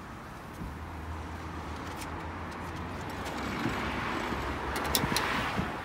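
Wheelchair restraint strap in a wheelchair-accessible van being pulled out by hand: the webbing slides with a building hiss, and its metal fittings click a few times about five seconds in, over a steady low hum.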